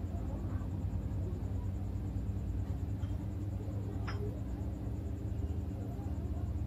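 Steady low hum, with faint scraping of a metal spoon scooping papaya flesh and one sharp click about four seconds in.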